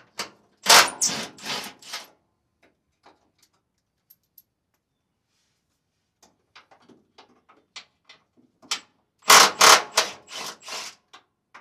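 Cordless power tool on a socket extension running in two short bursts, about a second in and again near the end, backing out the truck-bed mounting bolts from the frame. Faint metallic ticks come from the tool and socket in between.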